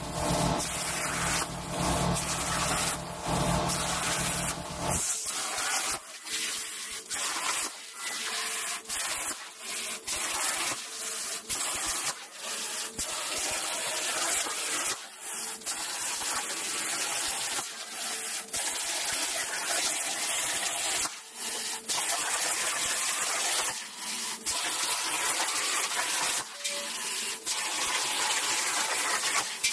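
CNC plasma cutter torch cutting 14-gauge hot-rolled steel sheet: a loud, steady hiss of the arc and air with brief breaks every second or two as the torch stops between cuts. A low hum sits under it for the first five seconds.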